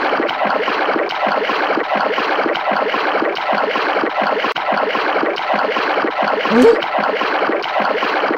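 Cartoon sound effect of continuous splashing, churning water, with a short rising squeak about six and a half seconds in.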